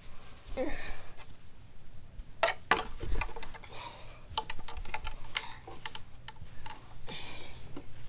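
Irregular clicks and light knocks of toys being handled, with a box used as a toy car pushed and moved about on carpet.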